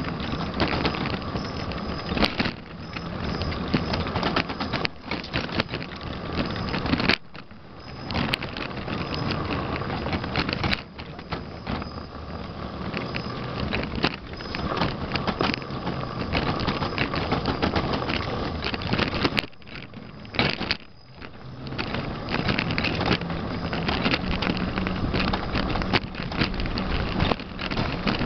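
Small vehicle racing over pavement, heard from on board: a continuous rattling rush of wheels and motor mixed with wind noise. It drops away sharply twice, about seven seconds in and again about twenty seconds in, then picks back up.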